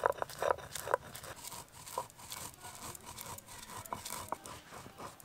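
Dry-roasted whole spices (red chillies, coriander, cumin, fennel) being ground by hand to a coarse powder. There are short rubbing, scraping strokes about twice a second at first, then softer rubbing and light clicks.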